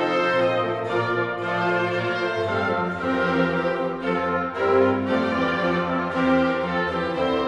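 Orchestral background music with strings and brass playing sustained chords.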